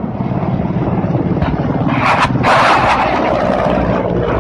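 Military transport helicopter flying low and close, its main rotor making a fast, steady chop under the engine noise. A louder rush swells about two seconds in as it passes nearest.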